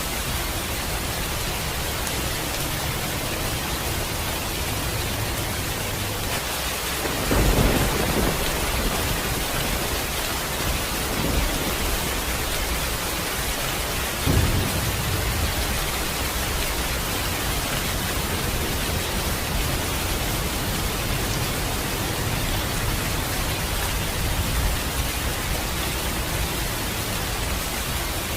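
Steady heavy rain hissing, with a loud thunderclap rolling into rumble about seven seconds in and a second, sharper clap about fourteen seconds in.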